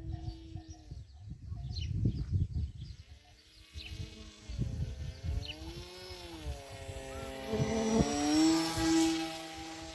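Electric RC plane's A2212 brushless motor and 8x4 propeller whining overhead, its pitch rising and falling with throttle and passing, loudest on a close pass near the end. Wind rumbles on the microphone in gusts.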